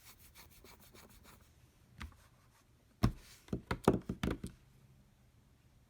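Handling of a packaged ratchet set: a run of light rapid clicks, a single knock about two seconds in, then a quick series of louder knocks and taps about three seconds in.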